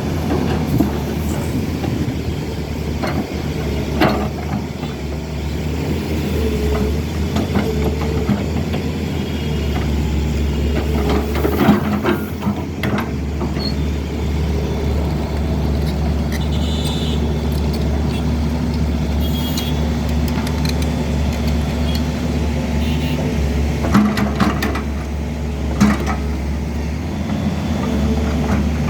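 SANY excavator's diesel engine running steadily while it unloads stone from a truck, with a few sharp knocks of rock and bucket against the truck bed.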